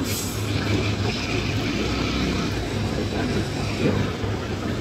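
A steady low rumble and hum of background noise, with no distinct events.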